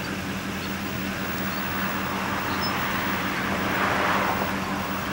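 Steady low hum of an idling engine under a wash of rushing noise that swells about four seconds in.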